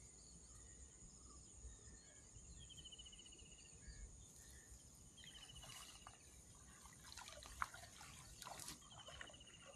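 Faint water dripping and trickling as a cast net is hauled up out of the water, the drips and small splashes clustering in the second half. Under it is a steady high insect drone, with a short trill that comes back every few seconds.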